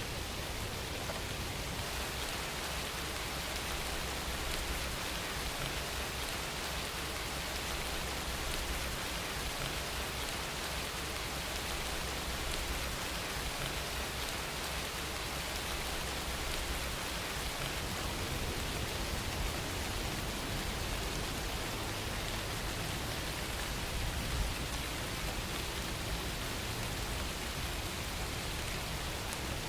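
Steady rain falling, an even hiss of many drops, with one sharper tap about 24 seconds in.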